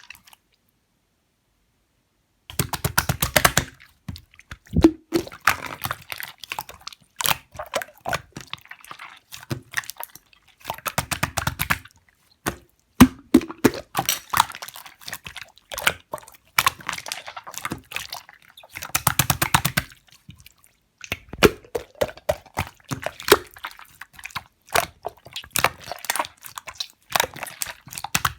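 Clear slime being squeezed and worked by hand, making dense runs of small sticky clicks and pops in bursts of a second or two with short gaps, starting about two seconds in.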